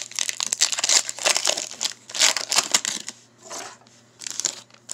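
Foil trading-card pack being torn open and crinkled by hand: dense crackling for about three seconds, then two softer rustles near the end.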